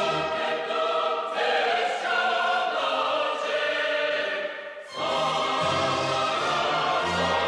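Background choral music: a choir singing long held chords, dipping briefly about four and a half seconds in before a fuller chord with low voices comes in.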